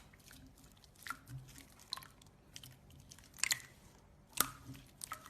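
Wet slime being squished and worked, making a string of small sticky clicks and pops, the loudest about three and a half and four and a half seconds in.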